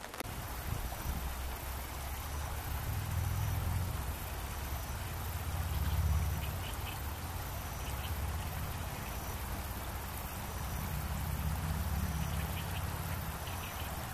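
Low, uneven rumble over the steady hiss of a shallow stream flowing over stones.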